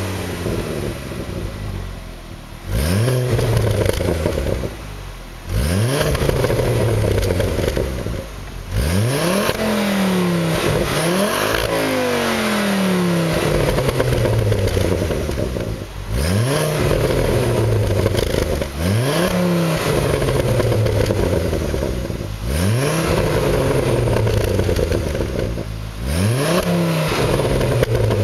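2009 Ford Focus ST's turbocharged 2.5-litre five-cylinder engine revved repeatedly at standstill through a Milltek turbo-back de-cat exhaust. There are about eight quick blips of the throttle, each rising sharply and then dying away slowly back toward idle, two of them close together about halfway through.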